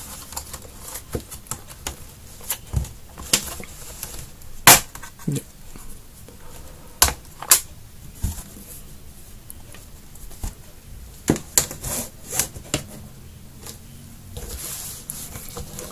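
Lenovo Yoga 510 laptop's plastic bottom cover being pried off with a small tool, its retaining clips snapping loose in irregular sharp clicks and taps, the loudest about a third of the way in.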